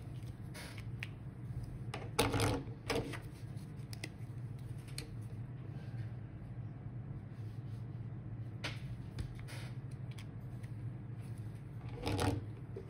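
Felt-tip highlighter scratching across paper in short strokes as lines on a printed plan are coloured in, over a steady low hum. Two louder handling sounds come about two seconds in and near the end.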